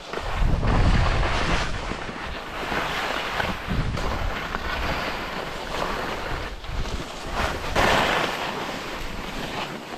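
Skiing at speed: wind buffets the microphone in low rumbling gusts, strongest about a second in, while skis hiss and scrape over snow, with a louder swell of scraping near the end.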